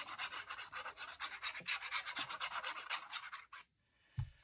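Rapid rubbing strokes against paper, several a second, stopping about three and a half seconds in. A soft thump follows near the end.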